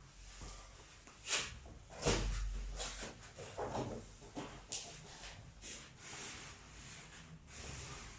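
Handling noises of a chiropractic neck adjustment: a series of short rustles and knocks from bodies and hands moving on the treatment table, the loudest about a second and a half and two seconds in.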